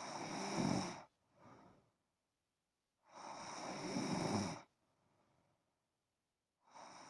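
A sleeping person snoring. Rough, rattling snores come about every three seconds, each lasting around a second and a half. The first two are each followed by a short, much quieter breath.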